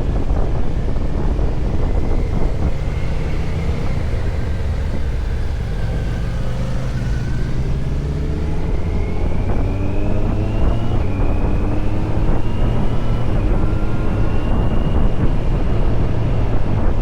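Kawasaki Z900 SE's inline-four engine through an SC-Project CR-T exhaust, pulling up through the revs several times with short breaks between, as in accelerating and shifting up through the gears. Wind on the microphone runs under it.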